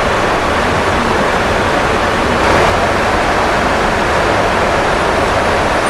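Steady rushing roar of airflow and jet engines heard inside a Boeing 707-type cockpit in flight, swelling slightly about two and a half seconds in.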